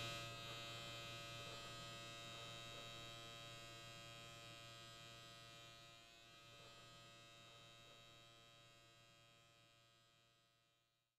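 Electric shaver buzzing steadily, fading away over about eight seconds.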